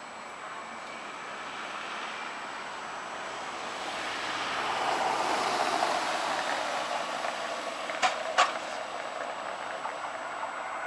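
Rushing noise of a passing road or rail vehicle swells up over a few seconds and fades. Two sharp clicks come about eight seconds in.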